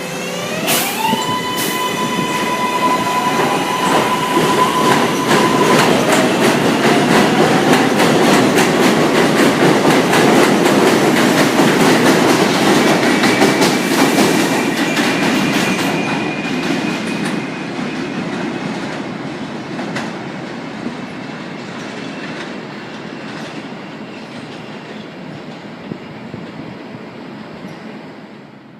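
New York City subway train pulling away: its traction motors give a rising, stepped whine in the first seconds, then the wheels clatter and click over the rail joints as the noise builds, peaks about halfway through and slowly fades.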